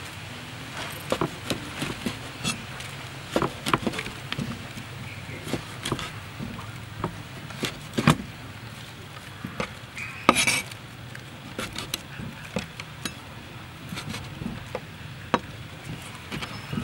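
Cleaver chopping squid on a wooden cutting board: irregular knocks of the blade striking the board, with one sharper knock about eight seconds in.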